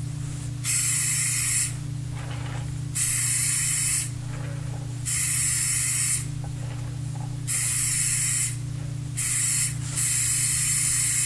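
Aerosol spray can of shellac spraying a coat of finish in six separate hissing bursts, each about a second long and a second or two apart; the last burst is the longest and runs on past the end.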